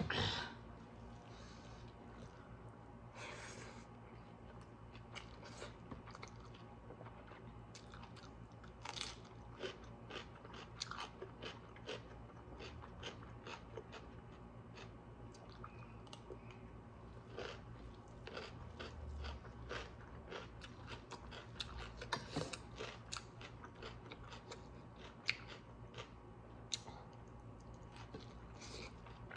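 A person chewing and biting food close to the microphone, with irregular small crunches and clicks.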